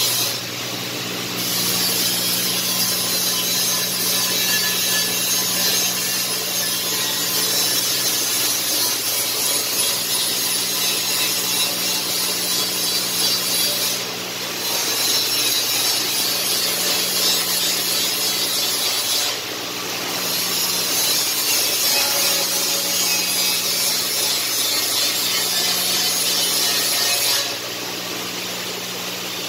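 CNC wire EDM machine cutting through a thick metal block: a steady loud hiss from the sparking wire and the water jet flushing the cut, over a low hum. The hiss eases off briefly a few times, the longest near the end.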